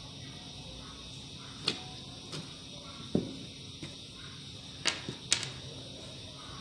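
Small parts being handled on a plywood workbench: a handful of sharp clicks and a duller knock about three seconds in, with the loudest clicks near the end as metal washers are picked up from the table, over a steady background hiss.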